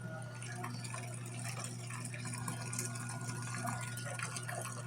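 Water running into the tub of a Giantex portable washing machine as it fills from a sink hookup, over a steady low hum.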